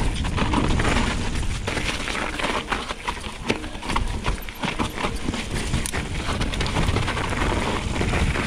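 Santa Cruz Hightower LT mountain bike descending a rough, icy and snowy trail: tyres rolling over snow and ice, with a steady run of irregular clatters and knocks from the bike over a low rumble.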